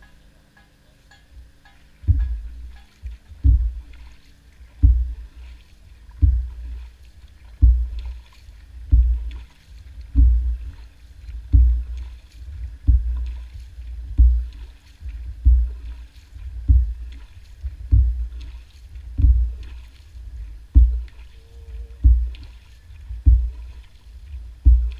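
Canoe-style paddling: a single-bladed plastic paddle stroking through the water, a low thump with each stroke, starting about two seconds in and repeating steadily about once every 1.3 seconds.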